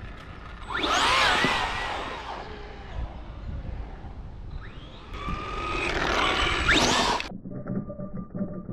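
Arrma Vorteks 3S RC truck's brushless electric motor whining as the truck is driven hard on asphalt: a sharp rising whine about a second in that wavers with the throttle, then a second run from about five seconds in that climbs to a high whine and cuts off suddenly.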